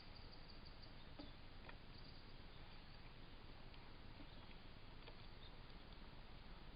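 Near silence: the faint steady hiss of a wildlife camera's microphone, with a few faint short ticks.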